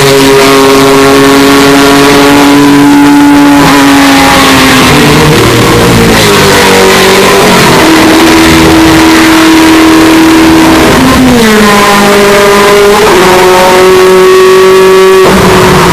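Mazda 767B's four-rotor rotary engine running very loud, its revs held steady for a few seconds at a time, then dropping and climbing again in steps. The recording is pushed to full scale and distorted.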